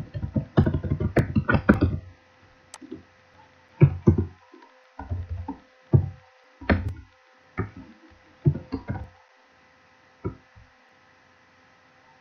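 Typing on a computer keyboard. A quick run of keystroke clicks lasts about two seconds, then short flurries of keys come with pauses between them, the last near ten seconds in, over a faint steady hum.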